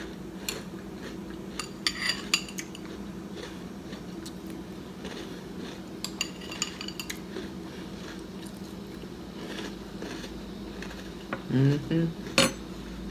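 A spoon clinking against a cereal bowl several times, in small clusters of sharp, ringing clicks.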